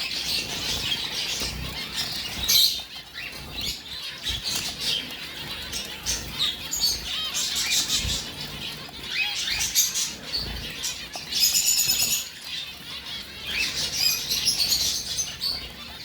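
Zebra finches calling, with short chirps coming thick and overlapping, and a longer call about eleven seconds in.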